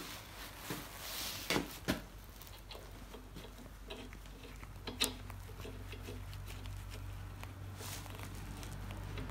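Faint handling noises as hydraulic hoses are threaded by hand onto the brass elbows of a hydraulic cylinder: gloved hands rubbing on the hoses and a few light clicks of the metal fittings. A low steady hum comes in about halfway.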